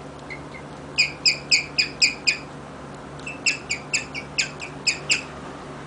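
Guinea pig chirping: short, high, bird-like chirps, about four a second, in two runs, the first starting about a second in and the second after a brief pause near the middle.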